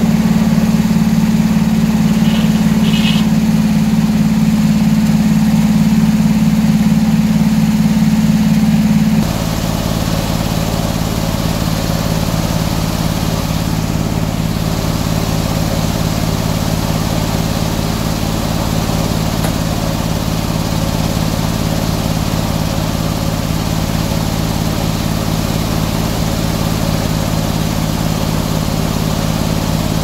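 Antique circular sawmill running loud and steady under load as its big blade cuts through pine. About nine seconds in, the cut ends and the sound drops to a slightly quieter steady running as the blade and drive spin free.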